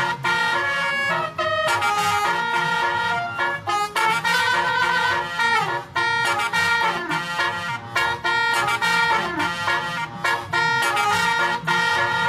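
Basuri telolet musical horn, a set of electric air-horn trumpets playing a tune. The notes change quickly, with brief breaks between phrases.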